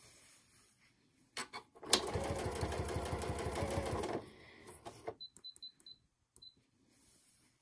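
Janome computerized sewing machine stitching binding onto a quilt edge, running at a fast, even stitch rhythm for about two seconds and then stopping. A few light clicks and a quick run of short high beeps follow.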